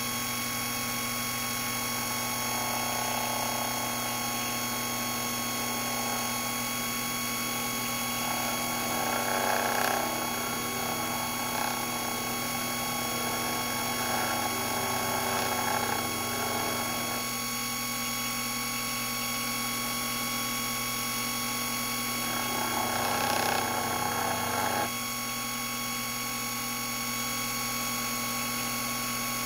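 Proxxon FD150 mini lathe running with a steady motor whine while the tool bit faces the end of the spinning workpiece. The cut adds a rougher scraping noise in several spells of a few seconds each, the last stopping abruptly a few seconds before the end.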